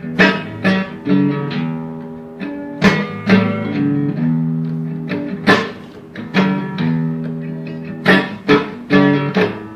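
Blues guitar playing an instrumental passage: sharply struck chords and picked bass notes that ring on between strokes.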